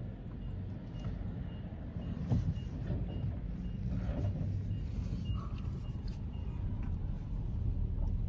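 Low, steady rumble of a car rolling slowly, heard from inside the cabin, with a faint high beep repeating about twice a second, like a forklift's backup alarm, and a brief knock about two seconds in.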